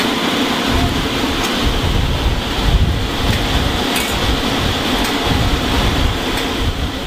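Steady outdoor background noise with wind buffeting the microphone in low gusts, over a constant high hiss; it fades out at the end.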